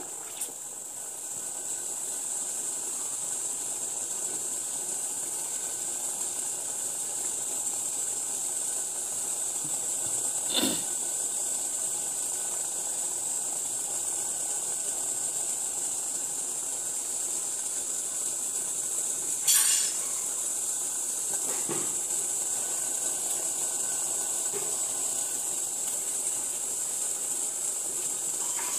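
Sugar syrup for jalebi boiling hard in a pan, a steady fizzing hiss as it thickens close to done. A few short knocks of the stirring spatula against the pan, the loudest about two-thirds of the way through.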